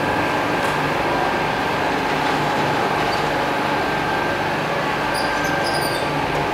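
Machinery on a coconut-shell charcoal briquette production line running steadily: a continuous loud mechanical din with a regular low throb. The conveyor belt carrying the freshly cut briquette cubes is part of it.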